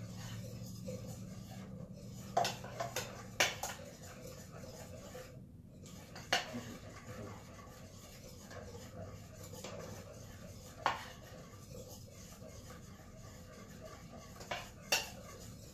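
Pancake batter being stirred in a stainless steel mixing bowl, with a few sharp, irregularly spaced clinks of metal utensils against the bowl.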